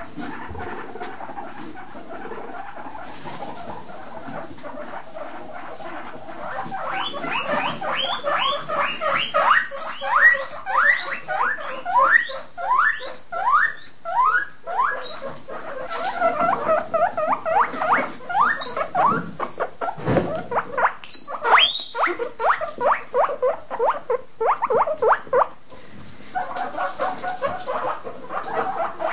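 Guinea pigs wheeking: fast runs of short, high squeals that each rise in pitch. They start about seven seconds in and go on in bursts, with one louder, higher squeal about two-thirds of the way through. It is the begging call guinea pigs make when they expect food.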